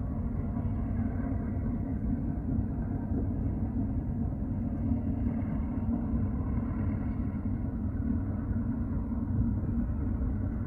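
Steady low rumble of a cargo ship's engine, even in level throughout.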